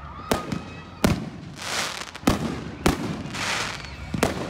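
Aerial fireworks shells bursting: about five sharp booms spread over a few seconds, with a hiss between them.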